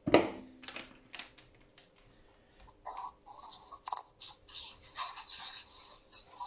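Kitchen prep handling sounds. A sharp clink with a short ring at the start, a few light clicks about a second in, then bouts of rustling and scraping from about three seconds on.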